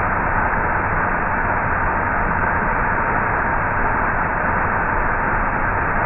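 Waterfall pouring over rock ledges into a shallow pool: a steady, even rush of falling water.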